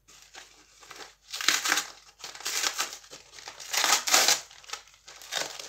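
A shipping package being opened by hand: its wrapping crinkles and rustles in several bursts, loudest about four seconds in.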